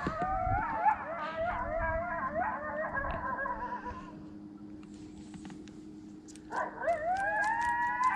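A pack of coyotes howling and yipping together, many voices wavering and overlapping. The chorus fades about halfway through, then swells again with rising howls near the end.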